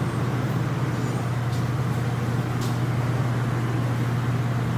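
Steady low mechanical hum with an even rushing noise, like building ventilation or machinery running in a shop, unchanging throughout.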